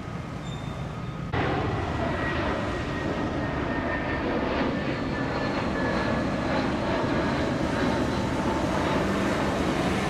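Jet airliner engines running overhead: a loud, steady roar with a faint high whine, starting suddenly about a second in.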